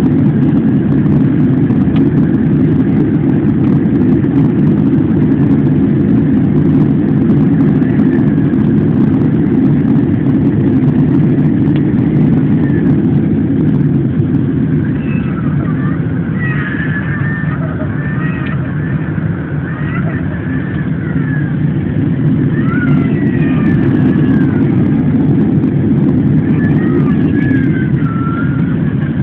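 Steady low rumble of an Airbus A340-600 heard from inside the passenger cabin: engine and airflow noise.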